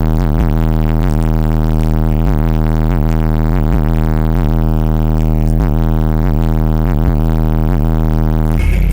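A steady low bass tone played very loud through four 12-inch Pioneer Premier TS-W3002SPL subwoofers. It is heavily distorted, with a dense stack of overtones. A brief rattling noise comes near the end.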